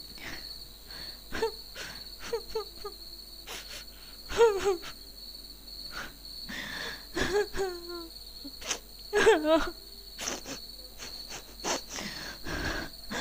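A woman sobbing and whimpering in several short, wavering cries, over a steady chirring of crickets.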